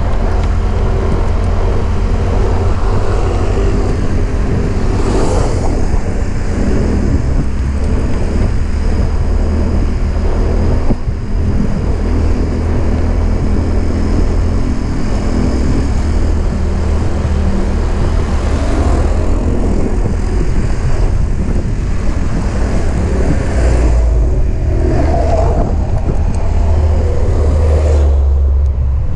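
Motorcycle ridden along a road in traffic: its engine running steadily under road noise and wind on the microphone.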